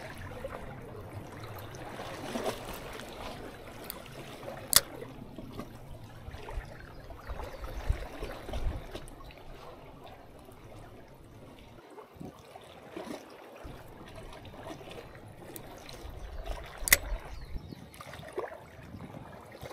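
Seawater lapping and sloshing among concrete tetrapod breakwater blocks. Two sharp clicks stand out, one about five seconds in and one near the end.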